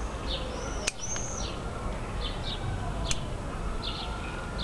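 Small birds chirping, with short repeated chirps and a pair of arching whistles about a second in. Two sharp snips of small bonsai scissors cutting elm shoots stand out, one about a second in and one about three seconds in.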